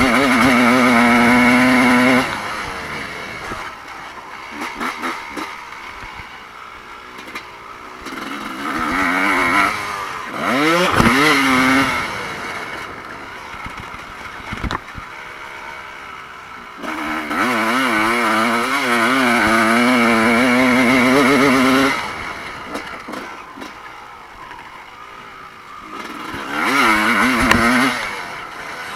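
Evo-class motocross bikes racing past, their engines revving up and down with the throttle. Loud bursts come four times, the bikes fading to a more distant engine drone between them.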